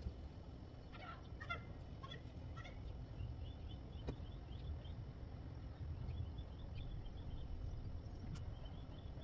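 Birds calling outside in short chirps, some in quick runs, over a steady low rumble. Bedsheet fabric rustles under the hands, and there are two sharp clicks.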